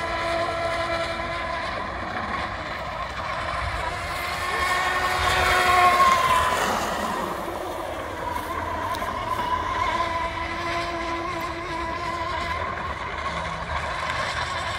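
Electric RC hydroplane's brushless motor and prop drive running at speed on the water: a steady whine with chatter from the drive shaft, which swells and glides up then down in pitch about six seconds in.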